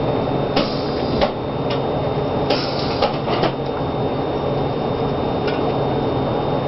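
Electric welding arc buzzing and crackling with irregular pops while a tack weld is attempted.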